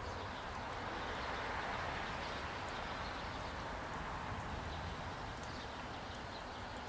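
Outdoor ambience: a steady low rumble and hiss, with faint high bird chirps now and then.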